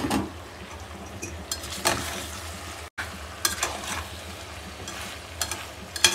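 Metal spoon scraping and knocking against a steel pot as beef and new potatoes are stirred, over a low sizzle of frying. The cooking water has dried up, so the meat and potatoes are being fried in the oil and spices. The sound cuts out for a moment about three seconds in.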